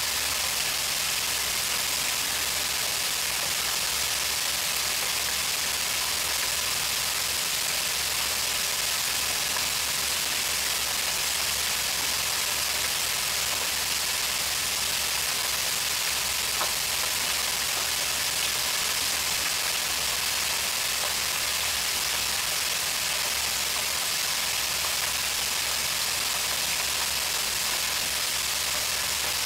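Pork chops deep-frying in an electric deep fryer: a steady, even sizzle of bubbling oil.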